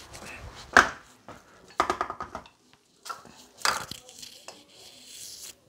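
Handling noises: sharp knocks and rustling as things are moved about, the loudest knock just under a second in and another near four seconds, with a brief voice about two seconds in and a hiss-like rustle near the end.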